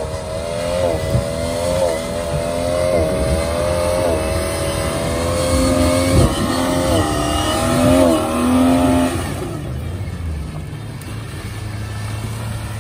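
Jeep Grand Cherokee engine working hard under load as the 4x4 pushes through deep mud ruts, its revs rising and dipping repeatedly with the throttle. The revs climb highest toward the middle, then ease off about nine seconds in to a lower, steady run.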